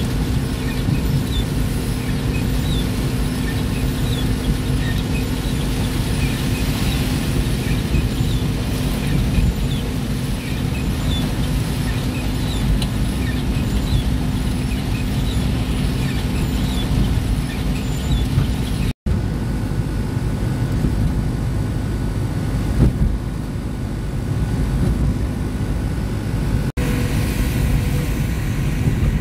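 Motor vehicle running steadily: a low rumble with an even engine hum, broken by two abrupt cuts, one about two-thirds of the way through and one near the end.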